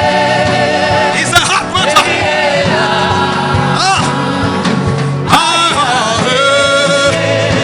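Worship music: a voice sings long, bending chant-like lines over held low backing notes, with a few sharp percussive hits.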